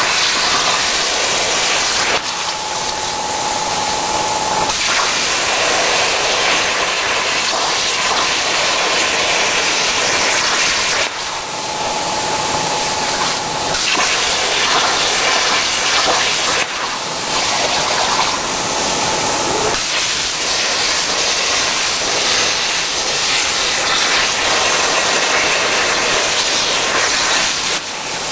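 Plasma cutting torch on a CNC cutting machine cutting through steel plate: a loud, steady hiss of the arc and gas jet that shifts in tone every few seconds as the cut moves along, with a faint whistling tone in some stretches.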